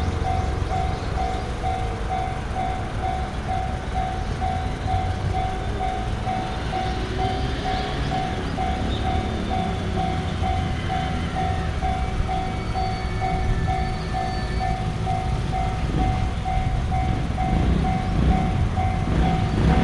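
Japanese level-crossing warning bell ringing in rapid, evenly spaced dings while a train runs through with a rumble of wheels on rail, the rumble growing louder near the end.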